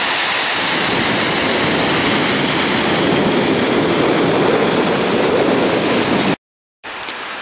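Water pouring over a low concrete dam spillway: a steady, loud rushing that cuts off abruptly about six seconds in. After a brief silence a quieter steady rush follows.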